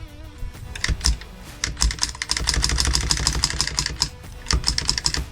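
Rapid metallic clicking and rattling from a rifle's action being worked by hand, densest in the middle. It is the sound of trying to clear a spent case that has failed to extract and stuck in the chamber of a dirty rifle.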